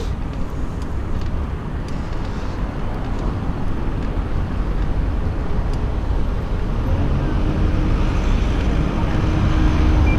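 Wind buffeting a strap-mounted GoPro Session while cycling, a steady low rumble mixed with the noise of road traffic alongside. A faint steady hum joins about seven seconds in.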